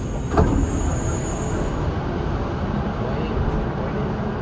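Dubai Metro train carriage running, a steady low rumble of the train in motion. There is a single knock about half a second in and a thin high whine over the first two seconds.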